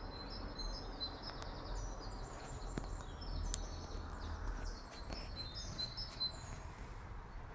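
Small birds chirping, a quick run of short, high notes, over a steady low rumble. A couple of sharp clicks come about three seconds in.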